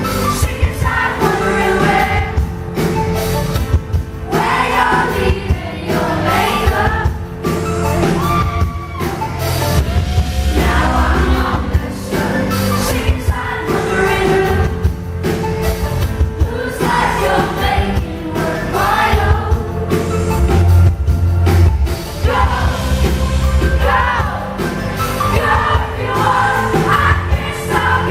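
Live band performing a pop-rock song, with female voices singing the melody over steady bass and drums.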